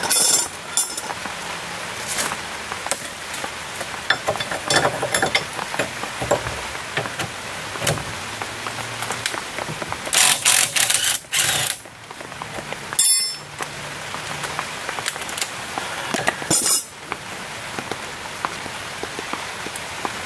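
Cordless impact wrench hammering in short bursts on the strut-to-steering-knuckle bolts, loudest for about a second and a half about ten seconds in, with shorter bursts near the start, around 13 s and around 17 s, over a steady hiss.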